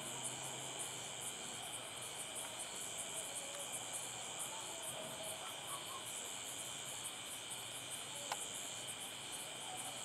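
Night chorus of crickets, a steady high-pitched chirping that runs on without a break.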